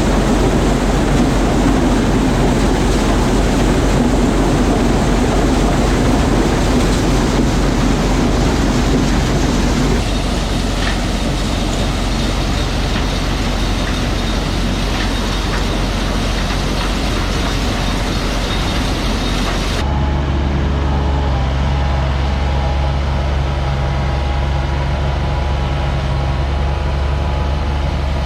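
Farm machinery running at full work: a loud, dense rattling din, typical of a corn sheller shelling ear corn. About 20 seconds in it changes abruptly to a steadier, lower engine drone with much less rattle.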